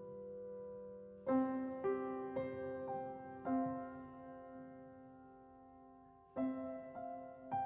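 Slow, gentle piano background music: a few notes struck about a second in, a chord left ringing and fading for about three seconds, then more notes near the end.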